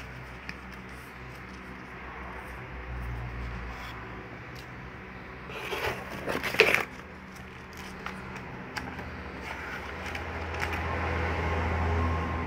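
Paper owner's manual rubbing and sliding against cardboard packaging: a soft rustle and scrape that grows to a brief burst about six seconds in, over a low steady hum.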